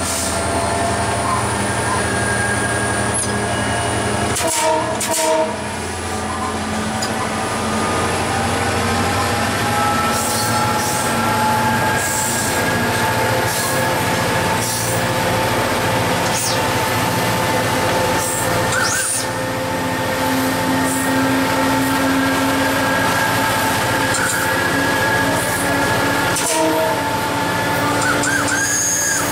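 Cab sound of an EMD GT36HCW two-stroke diesel locomotive running under power as the train accelerates from low speed. Its steady engine note mixes with wheel and rail noise, broken by a few short knocks.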